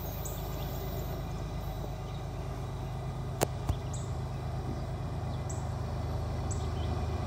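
Diesel locomotive engines of an approaching loaded CSX coal train: a low, steady rumble growing slowly louder. A short high chirp recurs every second or so, and two sharp clicks come about halfway through.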